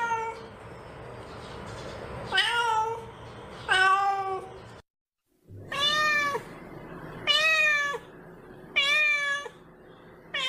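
A kitten meowing over and over: a string of short, high calls about one and a half seconds apart, each dipping in pitch at the end, broken by a brief silence a little before the middle.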